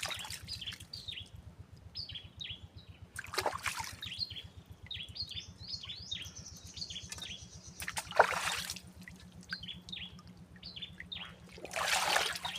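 Birds calling with many short, quick, falling chirps. Three brief rushes of noise cut across them.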